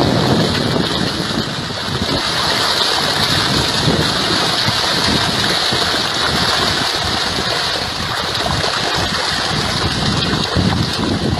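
Water churning and splashing at the surface of a river, with wind buffeting the microphone and a steady high hiss throughout.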